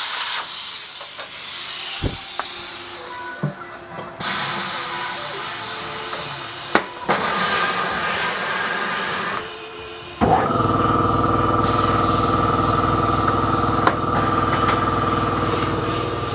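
A hiss of compressed air lasts several seconds. Then, about ten seconds in, a motor starts and runs steadily with an even hum.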